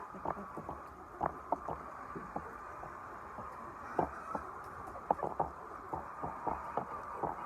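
Laying hens in a poultry house: scattered short taps and clucks, irregular and a few a second, over a steady background din.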